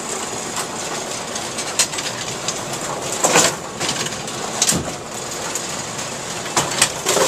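Brunswick A2-style bowling pinsetter running through a cycle: a steady mechanical clatter broken by several sharp knocks and clanks, the loudest about three and a half seconds in and another near the end.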